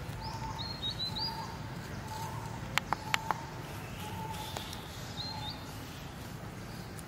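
Birds calling: a short note repeated about once a second, with brief higher chirps over it, against a low steady background noise. About three seconds in come four sharp clicks in quick succession, the loudest sounds here.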